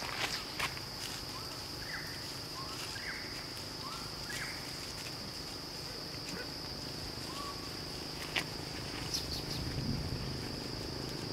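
Steady high-pitched insect drone with several short rising chirps over the first few seconds and one more past the middle. Scattered light clicks and rustles come from macaques moving over dry leaf litter.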